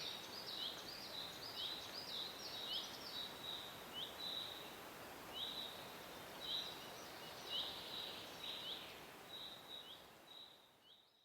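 Forest birds chirping in many short, quick high notes over the steady hiss of a soft breeze; everything fades away near the end.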